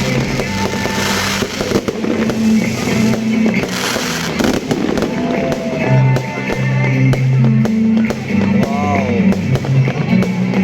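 Fireworks bursting and crackling, with a run of sharp cracks in the second half, over background music with a steady bass line.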